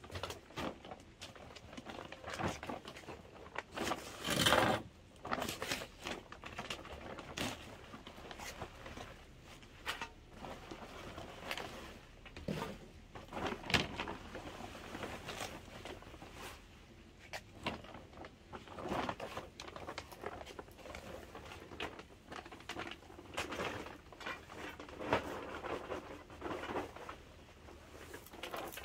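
Irregular rustling and light knocks of hydrangea cuttings and their bag being handled and laid on a patio table, with a longer, louder rustle about four seconds in.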